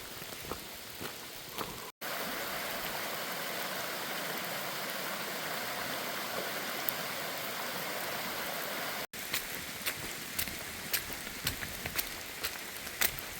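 Rain outdoors, in three clips cut together. Scattered drops patter over a soft hiss at the start and again at the end, and in between there is a steadier, fuller rush of water for about seven seconds.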